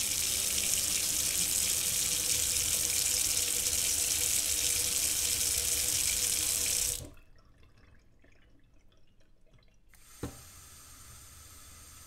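Kitchen faucet running a steady full stream into a stainless steel sink. About seven seconds in the flow is cut back sharply. A click comes near ten seconds, then a thin stream runs on more quietly.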